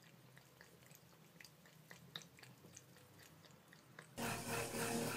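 A cat lapping water from a thin faucet stream: faint, quick, wet licking clicks. About four seconds in, a much louder sound with a steady repeating pattern cuts in suddenly.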